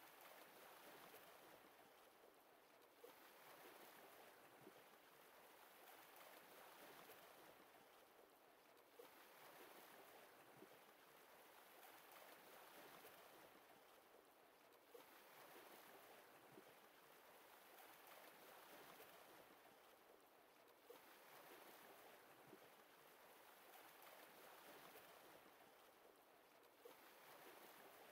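Faint lake water lapping, swelling and easing in a cycle that repeats about every six seconds, with a small splash once each cycle.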